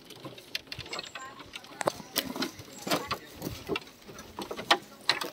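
A crowd of people talking among themselves in the background, with many irregular sharp clicks and knocks.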